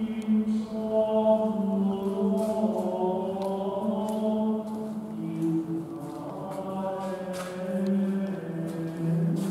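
Male voices chanting together in slow, long held notes that step gently up and down in pitch, in the style of monastic plainchant.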